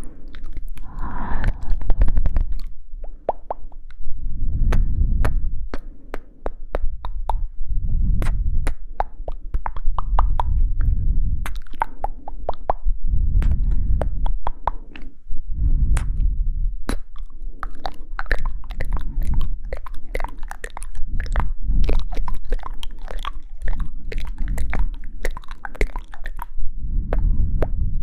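ASMR mouth sounds close to the microphone: rapid wet clicks and pops, over low muffled swells that come about every two seconds.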